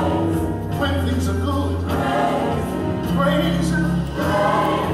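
Gospel music: a choir singing over held bass notes that change every second or so.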